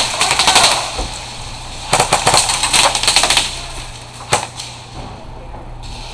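Airsoft guns firing rapid bursts of shots: a burst in the first second, a longer one around the middle, then a couple of single shots near the end.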